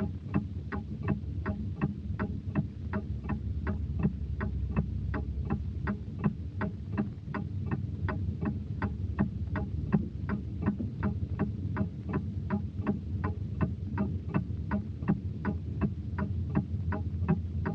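A steady, even ticking, about three ticks a second, over a low droning hum.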